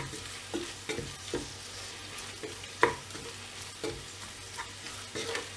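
Wooden spatula stirring onions, green chillies and mint frying in a pressure cooker pot: a steady sizzle with irregular knocks and scrapes of the spatula against the pot, the loudest a little under three seconds in.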